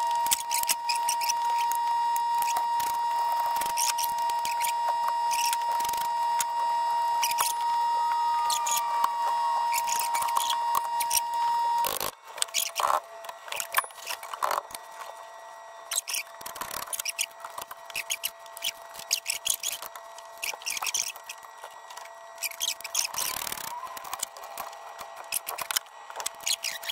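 Metal clicks and clinks of wrenches working the alternator's mounting bolts. A steady high-pitched whine runs underneath for the first half and cuts off suddenly about halfway through, leaving scattered tool clicks and knocks.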